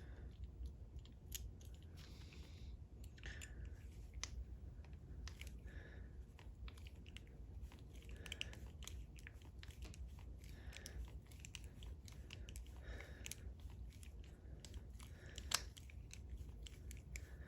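Small metal clicks and scrapes of a Clavis lock being taken apart by hand, its screw-held core being worked out of the shell, with short scraping sounds every couple of seconds and one sharper click near the end.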